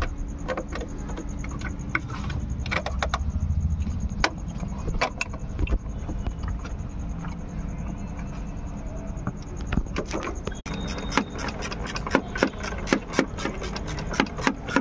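Irregular sharp clicks and knocks of repair work on the car, coming thick and fast over the last few seconds, over a steady low hum.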